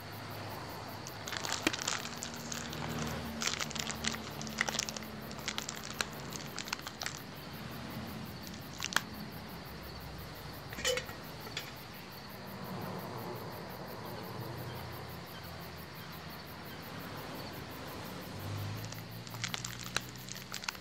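Quiet clicks, taps and rustling as a small steel tiffin box of food is opened and handled. The clicks come thickest in the first few seconds, with a few more later. A faint steady low hum lies underneath.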